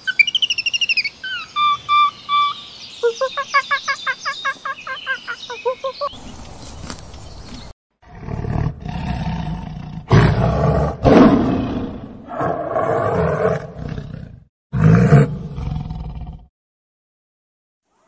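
High chirping and trilling calls for the first few seconds, then a tiger roaring and snarling in four loud bouts.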